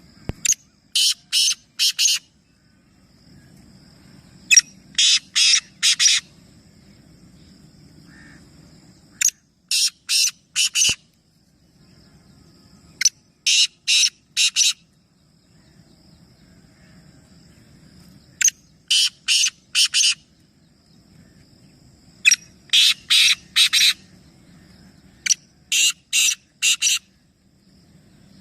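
A bird giving loud, harsh calls in quick runs of three to five short notes, each run repeating every few seconds.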